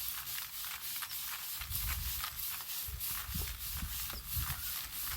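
Dried perilla stalks being beaten to thresh out the seeds: a steady run of dry, rustling strokes, about three a second. A low rumble joins from about one and a half seconds in.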